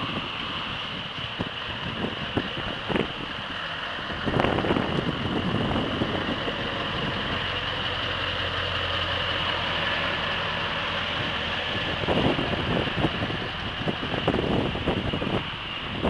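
Scania truck tractor unit's diesel engine running as it drives past, its low hum strongest for several seconds in the middle as it passes close by. Wind buffets the microphone throughout.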